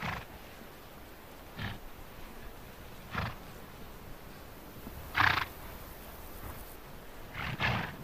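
Przewalski's horses making short, breathy grunts roughly every two seconds while a stallion mounts a mare. The loudest comes about five seconds in, and the last is a quick double.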